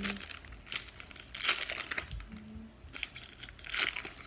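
Trading cards and their packaging crinkling and rustling as they are handled, in a few short bursts, with the loudest about a second and a half in and another near the end.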